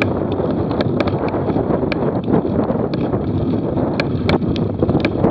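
Wind buffeting the microphone of a camera riding on a moving bicycle, over a steady rumble of tyres on rough pavement, with scattered sharp ticks and rattles, a cluster of them near the end.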